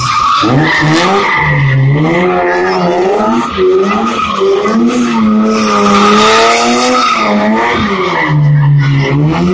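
Rally car's engine revving hard, its pitch rising and falling again and again, under a steady high tyre squeal as the car slides sideways.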